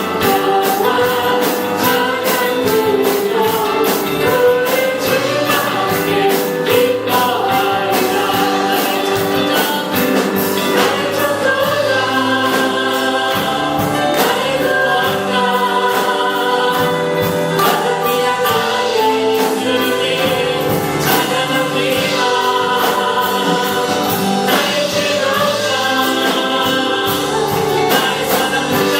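Christian worship song sung by a group of singers with a band, over a steady drum beat.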